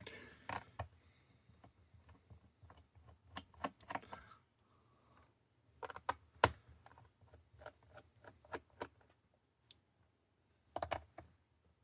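Irregular small clicks and taps of a screwdriver and loose screws against an Acer Chromebook's plastic bottom case as the screws are taken out, with one sharper knock about six seconds in.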